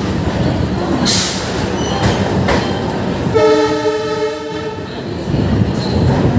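Passenger train rolling slowly along a station platform, its wheels rumbling steadily, with a single train horn blast of about a second and a half in the middle.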